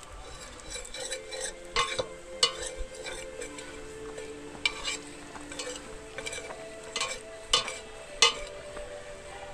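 Long metal spoon stirring liquid in a stainless steel pot, scraping and knocking against the sides with several sharp clinks.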